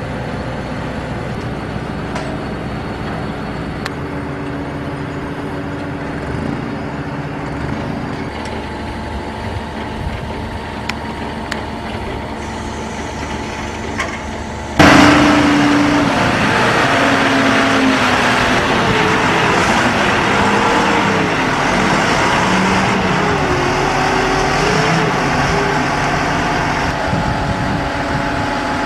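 Forklift engine running steadily, then revving up suddenly about halfway through and staying loud, its pitch rising and falling.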